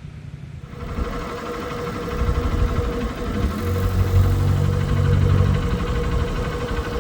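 An engine running, coming in about a second in and growing louder, with a steady hum and a low drone that peaks in the middle before easing slightly.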